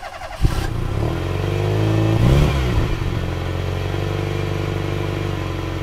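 Electric hair clippers buzzing steadily on a dog's fur. The buzz starts with a click about half a second in, and its pitch wavers briefly about two seconds in.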